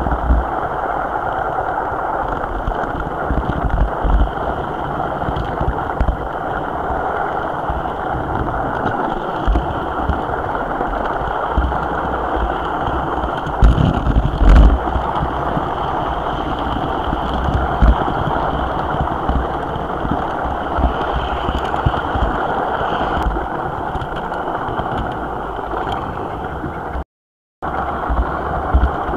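HO-scale model train running along its track, heard from a camera riding on the train: a steady rattle of wheels and motor with irregular low bumps, the loudest about halfway through. The sound cuts out for a moment near the end.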